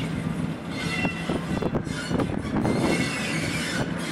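Class 08 diesel shunter and a second diesel locomotive coupled behind it moving slowly on curved track: a steady engine note with knocks from the wheels over the rail and brief high wheel squeal.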